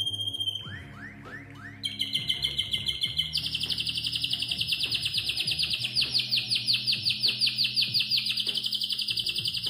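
Canary singing: a held whistle that breaks off, a few quick sweeping notes, then a long, very rapid high trill.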